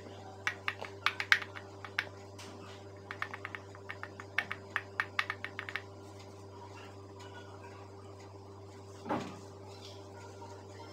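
Quick irregular runs of small taps and clicks as fingers press crumbly filling into the cavities of a silicone mould on a counter, stopping after about six seconds. A steady low hum runs underneath, and a single soft thump comes near the end.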